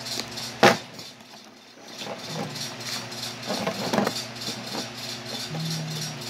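A sharp click just over half a second in, then scattered light rustling and tapping from hands working with objects, over a steady low hum.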